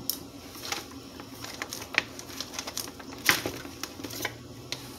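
Scattered light plastic clicks and knocks of a blender's pitcher being handled on its base, with the motor off. The two sharpest knocks come about two seconds and three seconds in.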